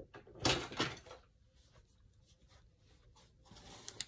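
Handling noise from small objects being picked up and moved: a brief rustle and clatter about half a second in, then a few faint taps and one sharper click near the end.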